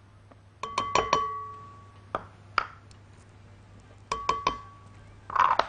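A glass mixing bowl clinking and ringing as the cups of dry ingredients are knocked against it while flour is tipped in. Quick taps in two clusters, one about a second in and another about four seconds in, each leaving a clear ring that fades.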